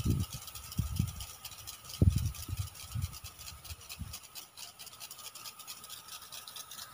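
Wind buffeting the microphone in gusts for the first four seconds or so, over a steady hiss and fine crackle from the field sprinklers' water jets.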